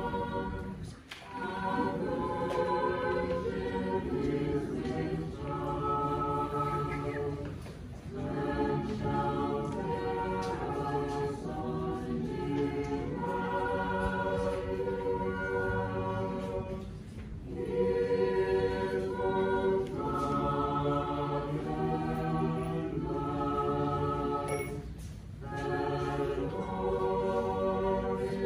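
Orthodox church choir singing liturgical chant a cappella in several parts, in phrases with brief pauses between them.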